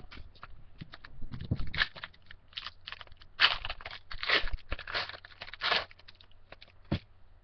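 Foil wrapper of a Bowman baseball card pack being torn open and crinkled in the hands: a run of crackles and rustles, loudest in the middle stretch.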